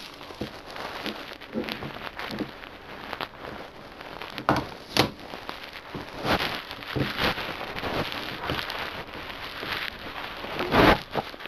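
Close handling noise: irregular rustling, rubbing and clicking as plastic movie disc cases are moved about in the hands near the microphone. A few louder knocks come around the middle, and the loudest comes near the end.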